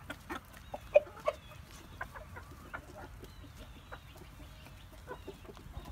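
A flock of chickens clucking in short, scattered calls while pecking at bread, with quick sharp taps; the loudest cluck comes about a second in.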